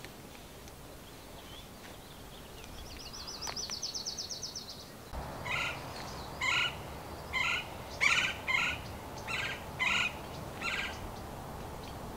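Wild birds calling: a fast, high trill a few seconds in, then a run of about eight short, harsh calls repeated every half-second to second.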